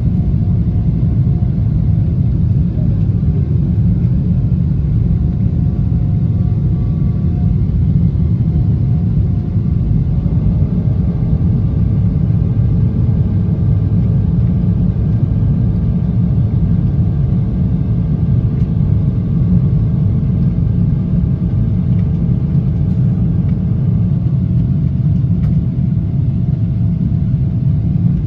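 Steady low rumble of cabin noise inside a Boeing 777-300ER climbing out after takeoff: its GE90-115B engines at climb power and the rush of air past the fuselage, with a few faint steady tones over it.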